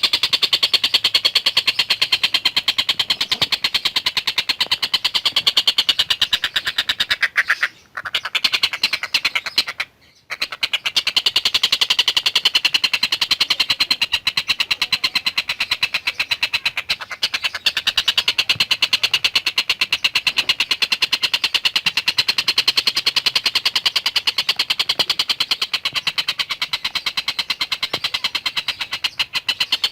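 Tengkek buto, a kingfisher, calling non-stop in a fast, chattering run of rapid repeated high notes, breaking off briefly twice near the 8 and 10 second marks.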